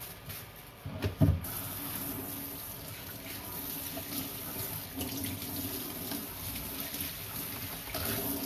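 A knock about a second in, then a steady rushing hiss of water that starts suddenly and runs on evenly.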